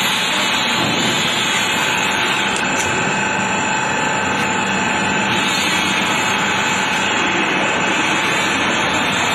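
Steady, even roar of factory background noise with a faint steady hum, unchanging throughout.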